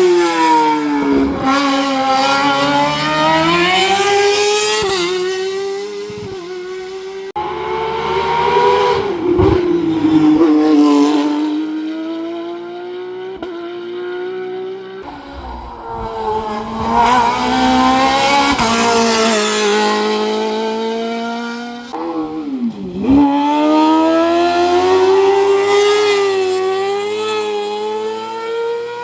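Racing car engine at full throttle, its pitch climbing and dropping back again and again as it shifts through the gears, with a few short lifts off the throttle.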